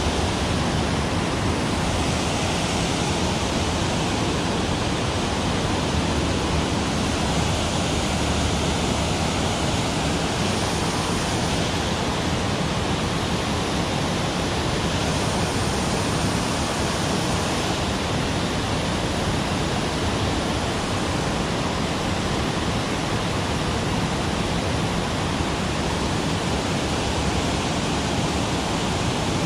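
Steady rush of stream water pouring over a low weir into a shallow pool, an even wash of sound with no breaks.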